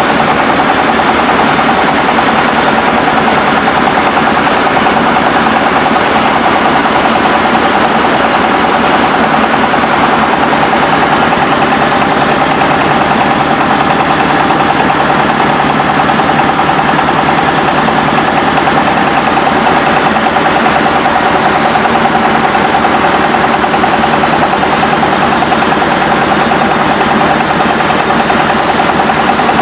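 Engine-driven mobile rice milling machine running at a steady, unchanging speed while it mills paddy, a loud constant drone with a fixed hum.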